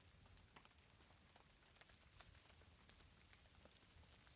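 Very faint rain: scattered raindrops ticking irregularly over a low hiss.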